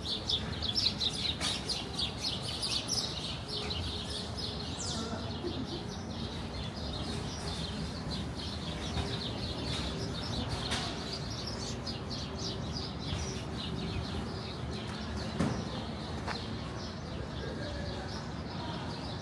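A flock of small birds chirping in rapid, overlapping chirps, busiest in the first few seconds and thinner after, over a steady low background hum of the street. A single brief sharp knock sounds about fifteen seconds in.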